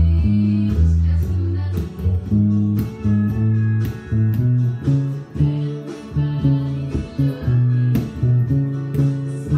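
Fender Precision electric bass playing a line of single notes in the key of A, moving up the neck through the scale, over band music with a steady beat.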